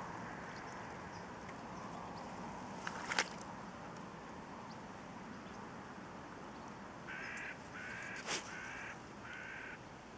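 A crow caws four times in a row near the end, each call harsh and about half a second long. Two sharp clicks, the loudest sounds, come about three seconds in and among the caws, over a faint steady hiss.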